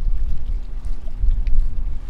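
Wind buffeting the microphone at a beach, a loud uneven low rumble, with a faint steady hum underneath.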